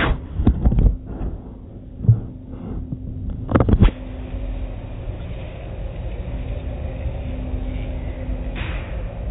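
Spinning cloth brushes of an automatic car wash slapping and rubbing against the car's windows and body, heard from inside the car: a steady low rumble with a faint hum, and several heavy thumps in the first four seconds.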